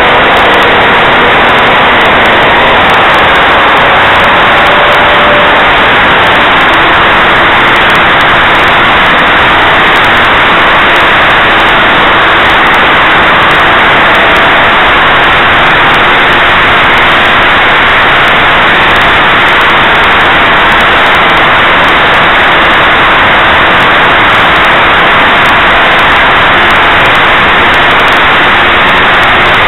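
O.S. 49-PI Wankel rotary model glow engine running at high throttle in flight, picked up by the plane's onboard camera microphone as a loud, steady rush of engine, propeller and wind noise. A faint engine pitch shifts upward in the first few seconds and then holds steady.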